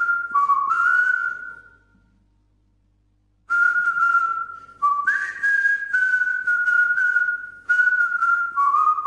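A whistled tune of held notes: one short phrase, a pause of about a second and a half, then a longer phrase of several notes.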